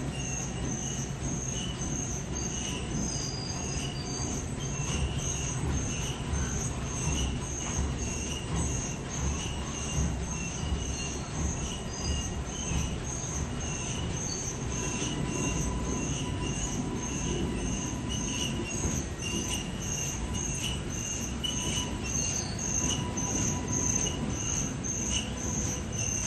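Industrial machinery running: a low rumble with a high-pitched squeal repeating evenly about twice a second.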